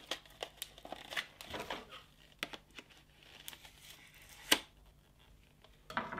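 Cardboard and paper packaging rustling and crinkling as a small knife scrapes and cuts at the paper band around a boxed plastic target mechanism, with scattered light clicks and taps; the sharpest click comes about four and a half seconds in.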